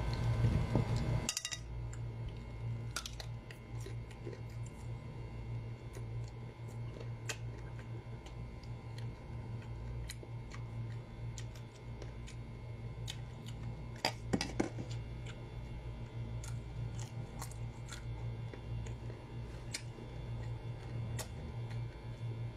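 Chewing crisp, unripe green mango: scattered small crunching clicks at irregular spacing, with a louder crunch about fourteen seconds in, over a steady low hum.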